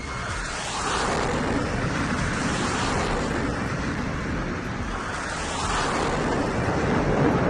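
A steady rushing noise like wind and sea surf, swelling about a second in and again near the end.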